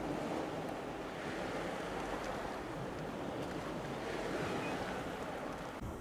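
Steady wash of sea waves on the shore.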